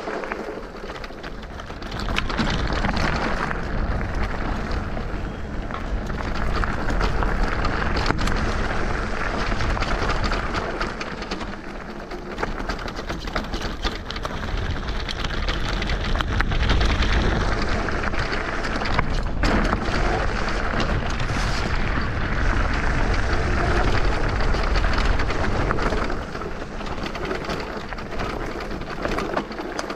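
FEDDZ electric bike ride over a rocky trail: a continuous, uneven rush of tyre noise over loose stones and gravel, with rumble and rattling from the bike, rising and falling as the terrain changes.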